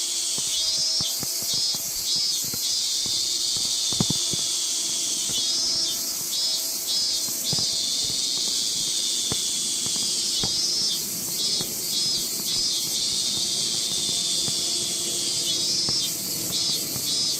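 Insects singing: a steady high hiss with a pulsing, stuttering call that comes back about every five seconds. A brief knock comes about four seconds in.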